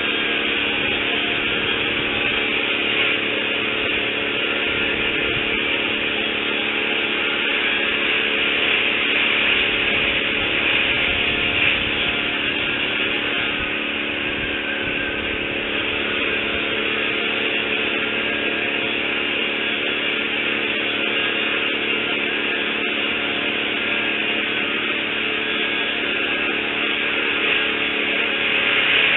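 A motor running steadily, with a constant hiss over it.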